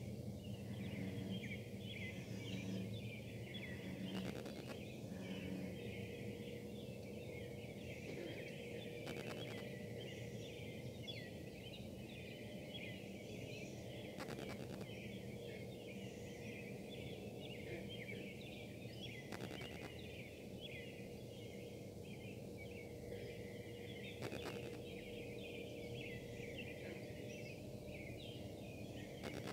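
A steady buzzing hum from the Casting Solutions foundry, with a steady higher harmonic above it, carrying from a distance. A dense high chirping runs over it, and faint clicks of wifi interference come about every five seconds.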